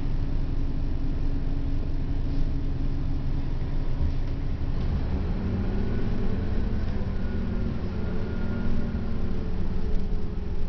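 1996 Orion V transit bus heard from inside the passenger cabin: a steady low engine and road rumble, with a stronger engine note and a higher whine coming up about halfway through as it pulls ahead.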